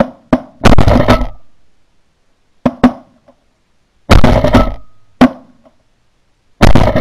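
A volley of shotgun shots from several guns, about nine in all in irregular clusters, the loudest ones close and sharp with a short echoing tail. This is hunters firing on a flock of pigeons.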